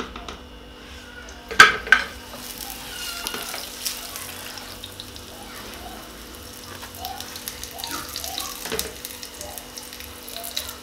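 Chapati frying on a hot flat pan with a steady sizzle, a slotted metal turner pressing it and clinking against the pan, loudest about two seconds in.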